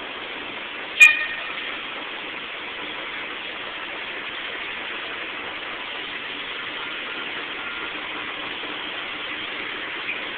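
Steady motor-vehicle noise from a city bus and traffic, heard through a cell phone microphone, with one sharp loud clank about a second in and a small click near the end.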